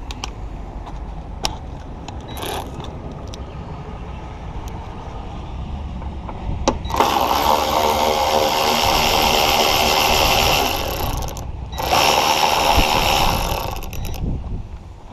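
Cordless ratchet backing out a bolt at the front bumper, its motor running twice: once for about four seconds, and again for about two and a half seconds after a short pause.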